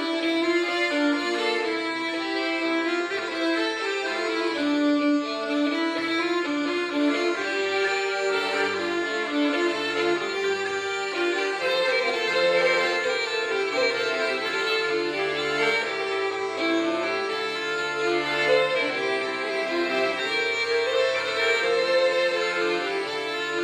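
Folk trio playing a dance tune together: a bagpipe melody over a violin and a diatonic button accordion (organetto), with a steady, even pulse.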